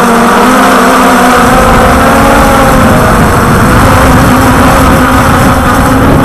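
Walkera Tali H500 hexacopter's electric motors and propellers whining steadily, heard from its onboard camera. A low wind rumble on the microphone comes in about a second in and stays.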